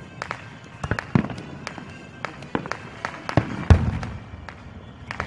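Fireworks going off in quick succession, a run of sharp cracks and pops, with the heaviest boom a little past halfway. Band music with brass plays underneath.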